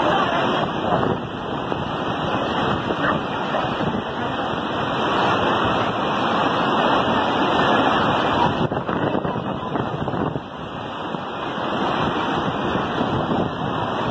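Steady rushing noise of a river in flood, mixed with falling rain.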